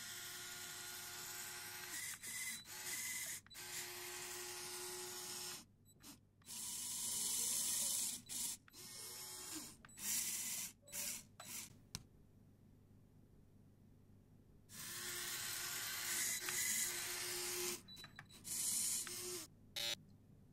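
Small electric motors of a Lego Technic RC car whirring in short bursts of a second or two as the rear-wheel-drive car creeps back and forth and steers into a tight parking gap, with stops between moves and a longer pause of about three seconds past the middle.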